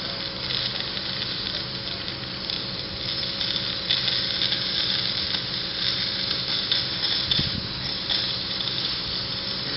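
Steady hiss of a fire hose's water jet hitting a burning wooden barn, with crackling and sizzling as the water strikes the flames, a little louder from about four seconds in. A steady low hum runs underneath.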